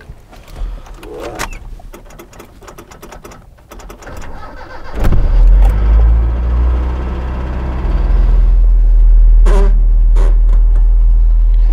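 Mitsubishi Mighty Max pickup's engine starting about five seconds in, catching at once and then running steadily, a little louder from about eight seconds in, heard from inside the cab. A few light clicks come before it.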